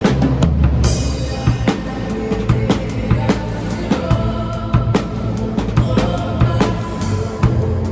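Drum kit played in time with a worship song, heard through a room microphone: steady bass drum and snare hits, with crash cymbals about a second in and again near the end, over the song's pitched backing music.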